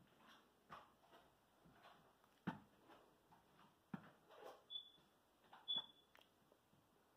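Faint, irregular footsteps and small knocks on a floor, about two a second, with a couple of short high squeaks. Otherwise near silence in a small room.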